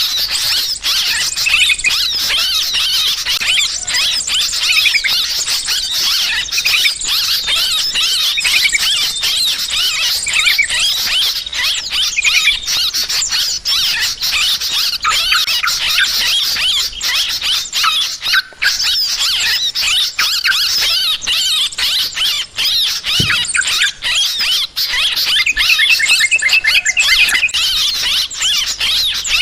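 Yellow-vented bulbuls in a noisy, agitated chorus: many harsh, chattering calls overlapping without a break.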